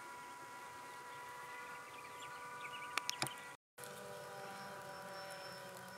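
Steady buzzing and droning of grassland insects in several pitches. A few sharp clicks come about three seconds in, then the sound drops out for a moment at a splice and resumes much the same.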